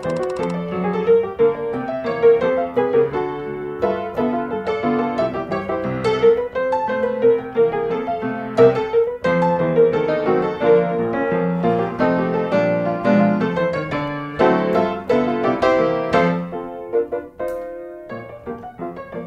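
Background piano music, many notes in quick succession, with a brief lull near the end.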